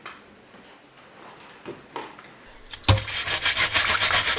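A few faint clicks as the bare metal air-filter housing is handled, then, about three seconds in, loud rapid scrubbing strokes as the housing and its mesh are rubbed clean by hand with water in a stainless-steel sink.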